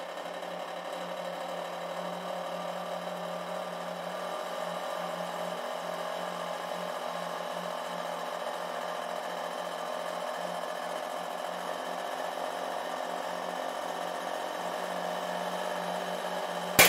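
Hydraulic press pump running with a steady hum while the ram bends a ratchet wrench handle under a load that climbs past 200 kg. A single sharp crack near the end.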